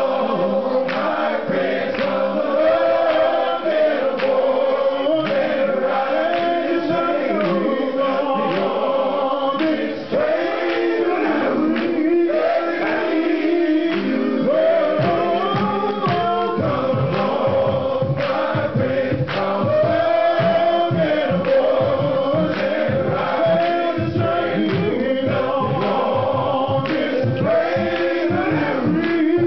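Men's gospel choir singing, with a male soloist leading through a handheld microphone.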